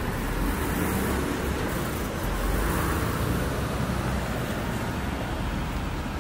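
Steady rumble and hiss of a sawmill yard as a Kalmar battery-electric forklift moves a load of sawn timber, with no engine note. It gets a little louder about two seconds in.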